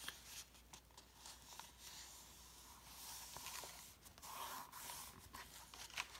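Faint rustling and sliding of paperback book pages as they are folded and pressed down by hand, with a few soft clicks.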